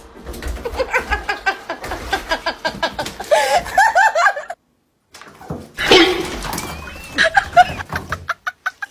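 A person laughing in short repeated pulses, with voice sounds, broken by about half a second of silence near the middle.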